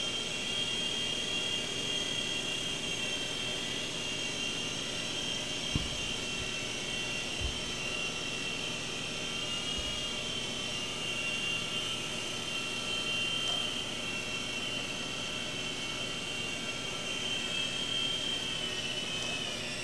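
Small electric Blade RC helicopter hovering and flying, its motor and rotor giving a steady high whine that rises and falls slightly in pitch. Two faint low knocks come about six and seven and a half seconds in.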